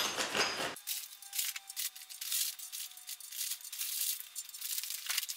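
Steel rocker arms clinking and rattling against each other inside a plastic bag as a hand rummages through them and takes one out, with light rustling of the bag.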